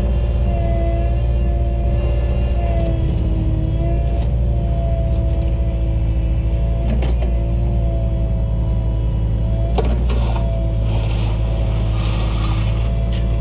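Cat 303.5 mini excavator running under load while digging, its diesel engine humming steadily under a shifting hydraulic whine. There are three sharp knocks of the bucket against soil and stone, and a burst of scraping near the end.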